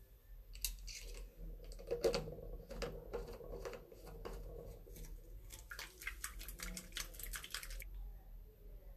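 Small plastic clicks and taps as a spray-pump cap is fitted and screwed onto a plastic bottle, quickening into a rapid run of clicks that stops about a second before the end.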